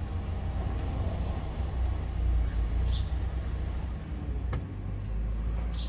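Outdoor background of a steady low rumble with a light hiss, broken by two short high chirps, one about halfway through and one near the end, and a single click a little after the middle.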